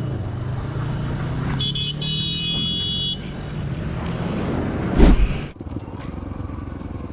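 Motorcycle engine running steadily under way, with a high shrill tone for about a second and a half near the start and a loud thump about five seconds in. After the thump, quieter, lighter road noise with faint ticks.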